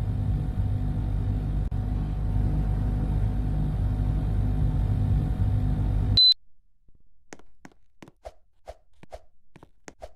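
Air conditioner running with a steady low hum. About six seconds in, a single short high beep sounds and the hum stops at once, the unit switching off, leaving only faint scattered clicks.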